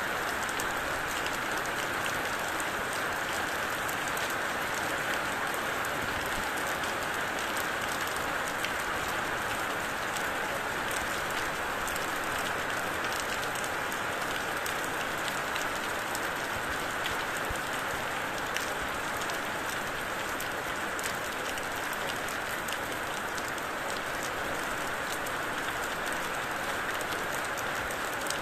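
Steady rain falling, with many small drops ticking on a surface over an even hiss.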